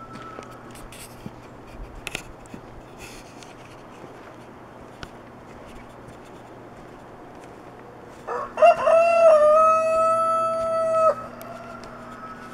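Rooster crowing once, about eight seconds in. A few short rising notes lead into a long, held, loud note of about two and a half seconds that cuts off abruptly.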